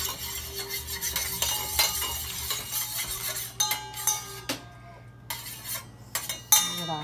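Metal utensil stirring and clinking against a small metal pan of coconut oil and crushed camphor being warmed. Steady hiss at first, then from about halfway a quick run of sharp clinks, several with a short metallic ring.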